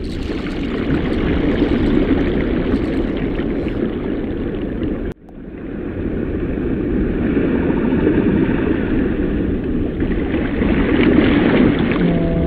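Steady rushing sea-water noise, a dense, low-heavy wash of ocean ambience. It cuts out sharply about five seconds in, and a similar wash of water fades back up.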